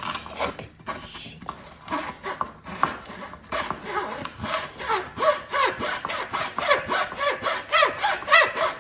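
Hand saw cutting through wood in quick back-and-forth strokes, about four a second, getting faster in the second half, with a squeaky rasp on each stroke.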